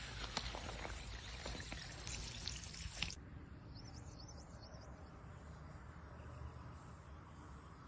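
Kinetic sand being squished and crumbling, a fine crackling hiss with many tiny clicks. It cuts off suddenly about three seconds in, leaving a faint hiss with a few high chirps.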